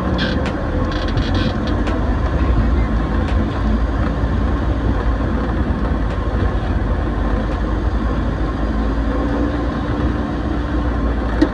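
Steady riding noise from a moving motorcycle: the engine running under wind rushing over the microphone. There is a short sharp knock near the end.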